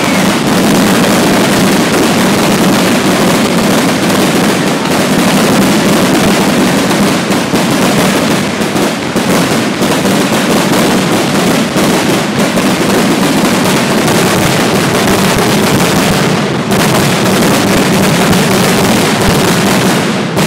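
Fireworks finale: a continuous barrage of aerial shell bursts, many overlapping reports and crackles with no gap between them.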